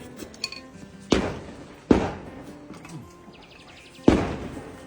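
Faint background music broken by three sharp thumps, about a second in, near two seconds, and about four seconds in, each dying away quickly.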